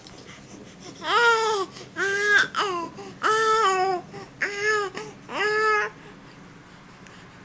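Young baby cooing and babbling in a run of about six short, high calls, each rising then falling in pitch.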